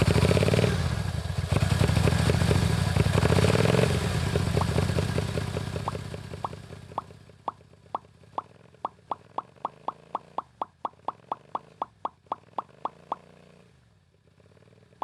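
Small engine converted from a compressor, running loudly, then dying away. Sharp, regular pops come about three times a second and stop shortly before the end.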